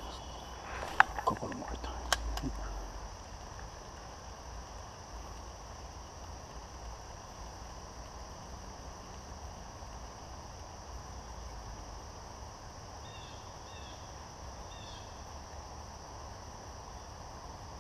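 Steady outdoor ambience of insects droning in the woods, with a low wind rumble on the microphone. A few sharp clicks in the first two seconds come from handling the spinning rod and reel, and a few faint short chirps come about two-thirds of the way through.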